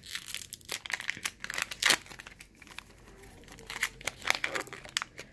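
Foil wrapper of a baseball card pack being torn open and crinkled by hand: a run of crackles, busiest in the first two seconds, thinning out for a moment, then more crinkling near the end.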